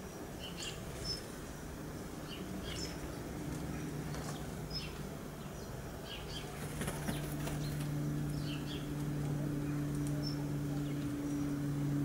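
House sparrows at a feeder: wings fluttering as birds land and take off, with short high chirps scattered throughout. A steady low hum comes in a few seconds in and grows louder after about seven seconds.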